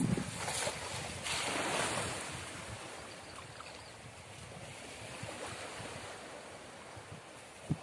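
A hand-thrown cast net splashing down onto river water about a second in, followed by river water lapping at the bank and wind buffeting the microphone. A brief low thump near the end.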